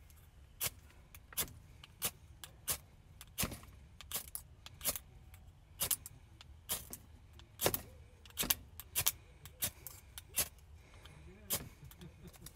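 Flint and steel fire striker scraped repeatedly down the rod, about eighteen short, sharp rasping strikes at irregular intervals, roughly one or two a second, throwing sparks onto an untreated cotton ball that is slow to catch.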